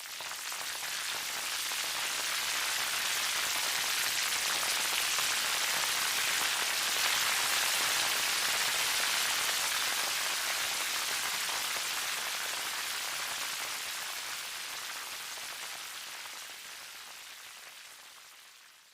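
Steady rain falling on a surface, a dense hiss of drops that fades in over the first few seconds and slowly fades out near the end.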